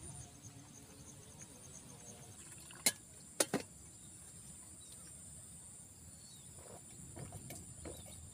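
Steady high chirring of crickets, with two sharp knocks about half a second apart, about three seconds in, from a steel mug being handled at a metal camp table.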